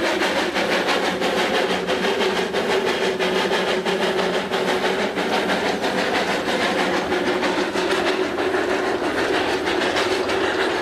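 Quarry Hunslet 0-4-0 saddle-tank narrow-gauge steam locomotive working a short slate train uphill past the listener, its exhaust beating quickly and evenly, with the slate wagons rattling along the rails behind it.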